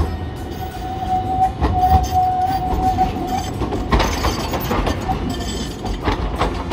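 Articulated low-floor streetcar rolling through a curved junction: a steady high squeal of the wheels on the curved track for the first three and a half seconds, over a low rumble, with several clunks as the wheels run over the rail joints and crossings.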